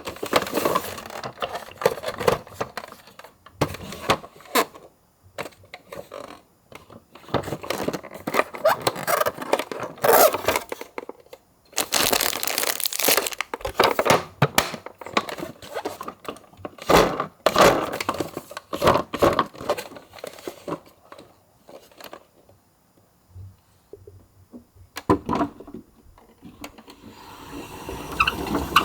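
Toy die-cast minicar ambulances rolling and clattering against one another and the sides of a box, in irregular bursts of rattling and knocking with brief pauses between them.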